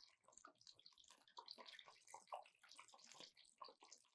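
Faint, irregular crackling and sizzling of egg rolls deep-frying in hot oil.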